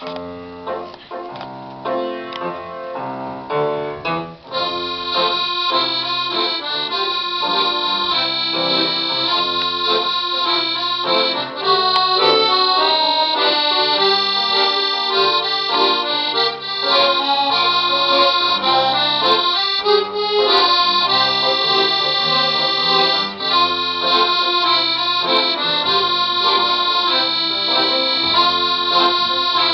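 Accordion playing a tune with chords. The first few seconds are sparser phrases; from about four seconds in it plays a fuller, continuous run of sustained notes.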